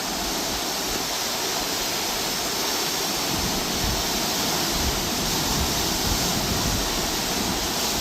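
A steady rushing hiss, with low rumbling buffets joining from about four seconds in.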